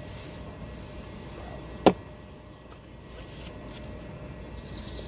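A single sharp knock about two seconds in, over a low steady outdoor rumble.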